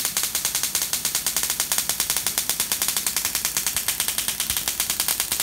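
High-voltage spark gaps on a 50 kV pulse supply discharging continuously: a rapid, even train of sharp electric snaps, roughly ten a second.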